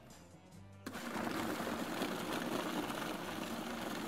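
Countertop food processor switched on about a second in, then running steadily, its blade chopping a mixture of dates, dried fruit, almonds, carrots and olive oil.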